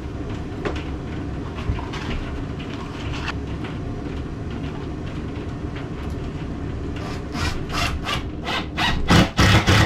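Rubbing and handling of cables and clips, then near the end a cordless drill driving a screw into the wooden underside of a desk in short repeated bursts, the loudest sound here.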